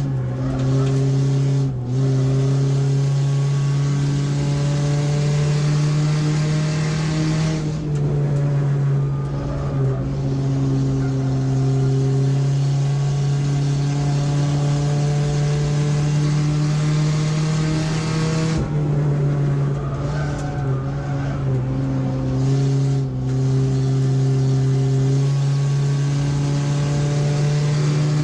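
Race car engine heard from inside the stripped cockpit, running hard under load, with wind and tyre noise. The engine note dips and changes briefly about 2, 8 and 18 seconds in, and its pitch climbs slowly in between.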